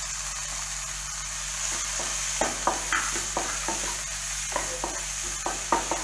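Chopped onions, capsicum and tomatoes sizzling in oil in a non-stick pan. From about halfway through, a spatula scrapes and knocks against the pan in quick stirring strokes.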